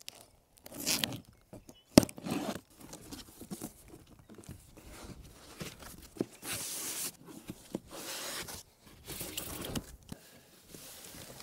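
Cardboard shipping box being opened by hand: packing tape tearing, flaps and cardboard rustling, and white foam packing sheets pulled out, scraping against the cardboard. A sharp knock about two seconds in is the loudest sound.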